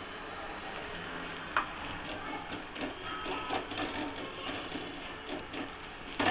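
Onion dosa sizzling on a hot griddle: a steady hiss with scattered light clicks and one sharp click about a second and a half in.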